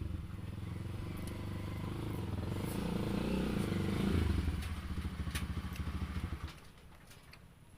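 A motorcycle engine goes by, growing louder for about four seconds and then fading away about six and a half seconds in. A few light clicks sound over it.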